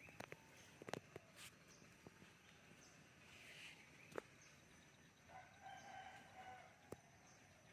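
Faint chicken calls with a few sharp clicks, including one drawn-out call about five to six and a half seconds in.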